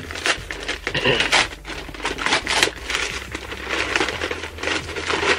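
Crinkling and tearing of a white shipping envelope being opened by hand, an irregular run of rustles and crackles.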